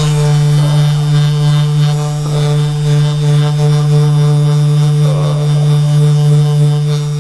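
A steady, loud electric buzz: one constant low hum with overtones, like a small motor running continuously.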